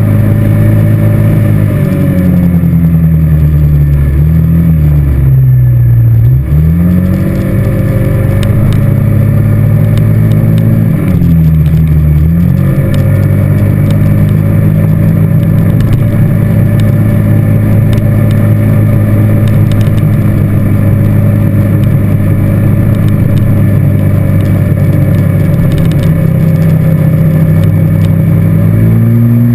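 ATV engine running close up while riding. Twice its note falls and picks up again, the second time briefly, then it holds steady.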